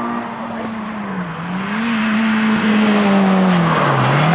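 Peugeot 205 rally car's engine at high revs, approaching and getting louder; the engine note dips twice, about a second and a half in and near the end, and picks back up.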